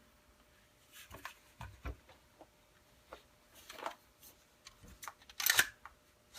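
Handling noises from a 300 Blackout AR-style rifle and its parts: a scattering of light clicks and scrapes, with a louder sharp clack about five and a half seconds in.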